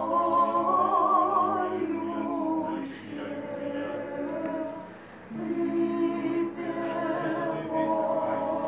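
Unaccompanied church choir singing Orthodox liturgical chant in held chords, with a short break between phrases about five seconds in.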